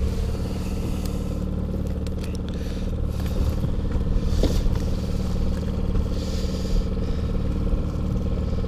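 Boat's outboard motor running steadily at trolling speed, a low even hum. About one and a half to three seconds in, gear in the boat scrapes and clatters briefly.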